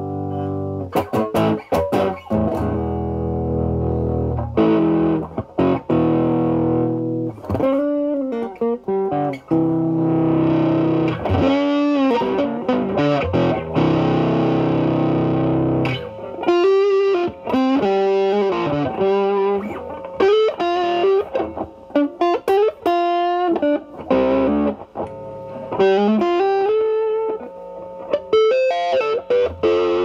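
Fender Stratocaster with single-coil pickups through a 1986 ProCo Rat2 distortion pedal (LM308N chip) into a Marshall Valvestate's clean channel, with the guitar's volume rolled back so the pedal cleans up to a light, edgy overdrive. It plays sustained chords, then single-note lead lines with string bends and vibrato.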